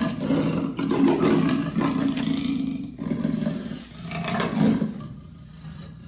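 Leopard roaring in long, loud bouts, with short breaks about three and four seconds in, then fading out near the end.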